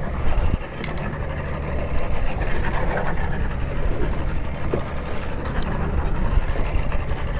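Boat engine running steadily at low speed, a constant low hum under the wind and water noise.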